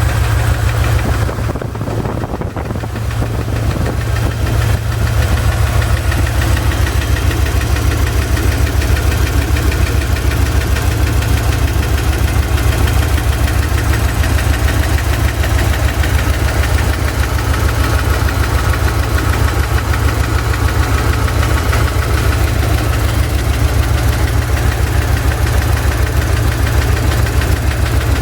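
Chevy ZZ4 350 small-block V8 running steadily with a rapid, even knocking or ticking that has persisted through a fresh valve lash adjustment and seems to come from the driver's side. The owner is unsure whether it is piston slap, a spun bearing or valve lash.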